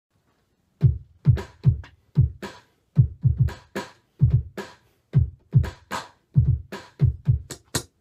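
Drum sounds played on the pads of an Akai MPC 2000XL sampler and heard through a speaker: an uneven hip-hop beat of hits, each with a deep thump, starting about a second in.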